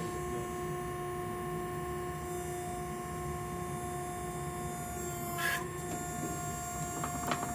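Hydraulic power unit of a 100-ton forging press humming steadily as the ram comes down on a red-hot steel cylinder. A short sharp noise comes about five and a half seconds in, and a couple of quick clicks near the end.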